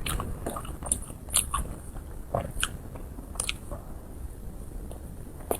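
Close-miked chewing of a soft, chewy dessert: irregular wet mouth smacks and sharp little clicks, a few each second.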